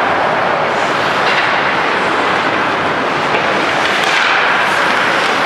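Steady rinkside noise of an ice hockey game in play: skate blades scraping the ice, with a few faint clacks of sticks or puck.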